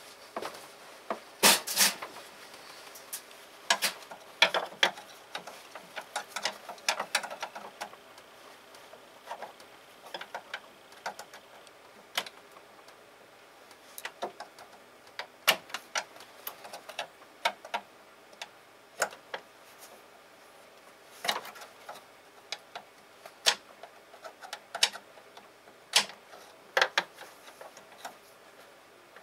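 Irregular sharp metallic clicks, clinks and knocks at no steady pace, like hand tools and metal parts being picked up, set down and worked.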